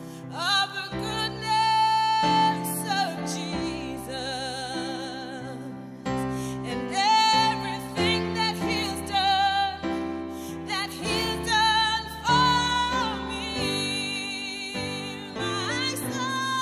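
A woman singing a slow gospel worship song with vibrato, accompanied by keyboard chords.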